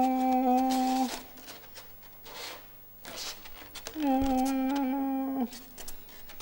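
White polystyrene foam board squeaking twice under the hands as it is gripped and tilted, each squeak a steady tone about a second and a half long, the second beginning about four seconds in.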